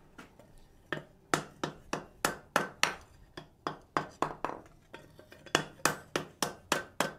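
Wooden mallet striking a red-hot leg of 1/8-inch steel plate over the anvil horn to bend it. A steady run of about twenty knocks, roughly three a second, starting about a second in.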